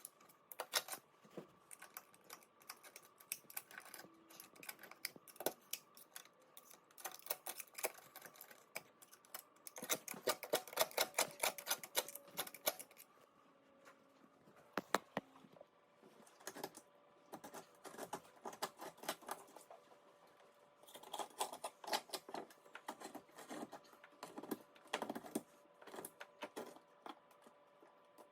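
A hand tool scratching and clicking against tiled counter grout in quick strokes, coming in bursts with short pauses between.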